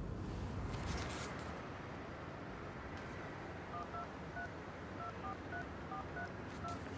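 Mobile phone keypad tones as a number is dialed: about nine short two-note beeps in an uneven rhythm, starting a little past the middle. A brief rustle comes about a second in.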